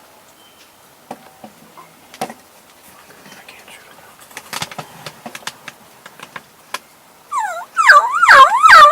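Faint clicks and rustling, then about seven seconds in a series of very loud turkey calls whose pitch swoops up and down, several overlapping.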